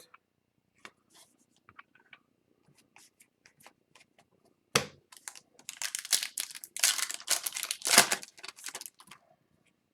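A trading card pack's wrapper being torn open and crinkled by hand. A few light clicks come first, then a sharp snap about five seconds in, then a stretch of crinkling with a louder crackle near the end.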